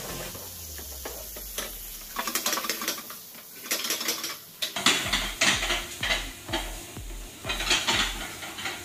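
Wooden spoon stirring and scraping a bean and lentil mixture in a metal frying pan, with sizzling and pans clattering on a gas range. The clatter starts about two seconds in and grows louder and sharper past the halfway point.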